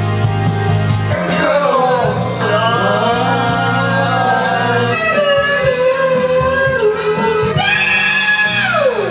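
A voice singing long, sliding notes over a karaoke backing track with guitar, with a steep downward slide near the end.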